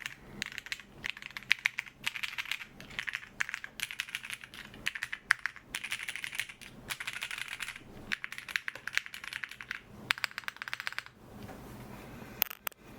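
Typing on a gasket-mounted TKL mechanical keyboard with lubed Cherry MX Black linear switches, a polypropylene plate, TX stabilisers and GMK keycaps, no foam inside: fast runs of clacky keystrokes in bursts. The typing stops about eleven seconds in, and a few sharp clicks follow near the end.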